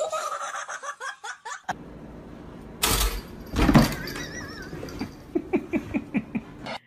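A voice calling out, then a couple of loud thumps, followed by a quick run of laughter near the end.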